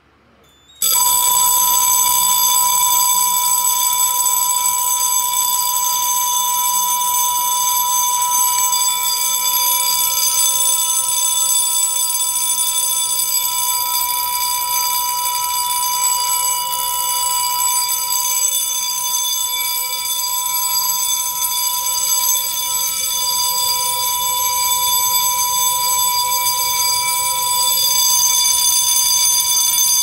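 Fire alarm bell ringing continuously after a key-switch activation. It starts suddenly about a second in and rings without a break at a steady pitch; it is very annoying.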